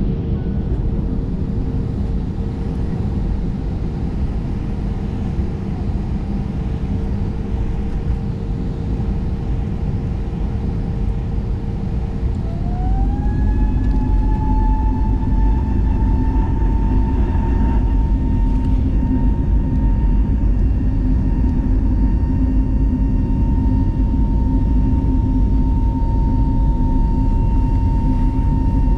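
Airbus A320neo engine noise heard from inside the cabin: a steady low rumble and hum. About twelve seconds in, the engine tone rises over a second or two and then holds, and the whole noise grows louder, as the engines spool up to higher thrust.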